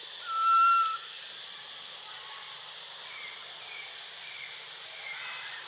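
Forest ambience: insects keep up a steady high-pitched drone and hiss. Near the start there is one clear whistled animal call, held on one pitch for just under a second, and a few soft short chirps come later.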